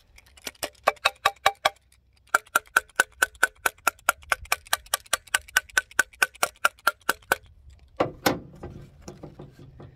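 Rapid metallic taps on a truck's heater blower motor housing, about five a second, each with a short ring, knocking gunk loose from around the motor's brushes. The tapping pauses briefly about two seconds in and stops with a duller thump near the eight-second mark.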